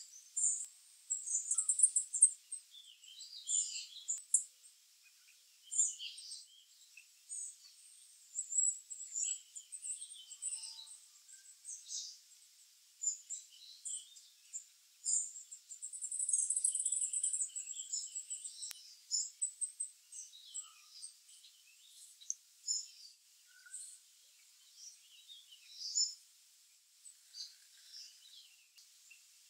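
Small songbirds calling at a feeder: a busy, irregular run of short, high chirps and twitters, with one longer trilled note about halfway through.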